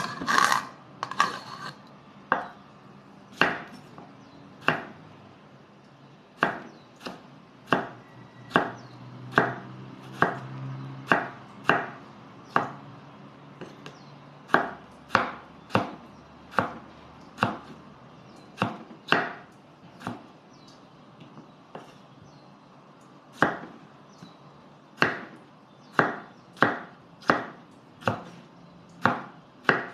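A large kitchen knife cutting tomatoes on a wooden chopping board: a run of sharp knocks as the blade strikes the board, roughly one a second, with a short pause about two-thirds of the way through.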